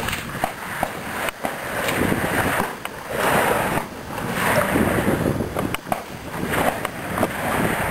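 Wind buffeting the microphone in gusts that swell and fade, with a few short clicks in between.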